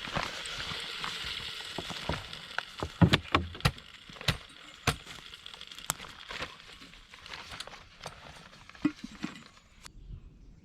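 Campfire hissing at first, the hiss fading, then a run of irregular sharp cracks and pops, the loudest a few seconds in.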